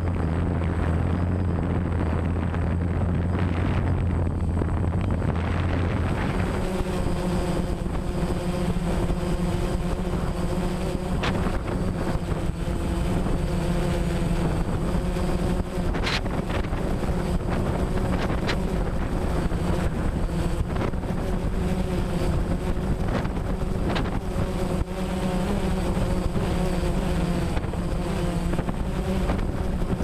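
Quadcopter drone's electric motors and propellers whirring steadily in flight, with wind noise on the microphone. The hum changes pitch about six seconds in, and a few sharp clicks come through later.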